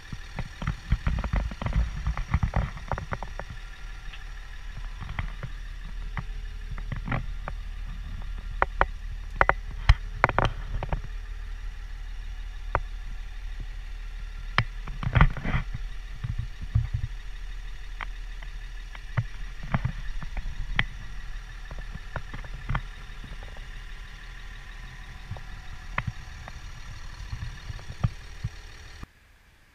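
Caterpillar PL61 pipelayer's diesel engine idling steadily at the open cab, with frequent sharp clicks and knocks over it, the loudest around ten and fifteen seconds in. The sound drops away abruptly just before the end.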